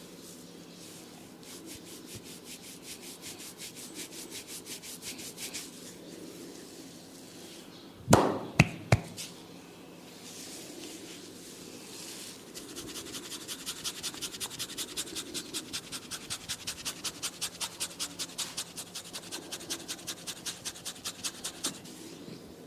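Barber's head massage: quick rhythmic rubbing and tapping strokes on the hair and scalp, about five a second, in two long runs. Three loud sharp cracks come a little over a third of the way in, the cracking that is part of this massage.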